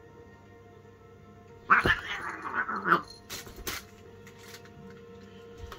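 A cat gives a loud, angry yowl lasting about a second, about two seconds in, as two cats square off to fight, followed by a few sharp knocks of the scuffle. Soft background music plays throughout.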